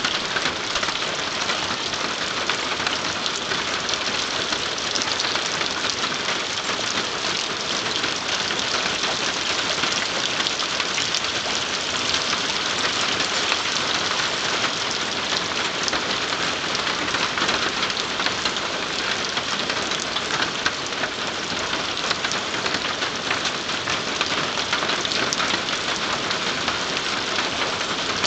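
Steady rain falling, an even dense patter of drops that holds at the same level throughout.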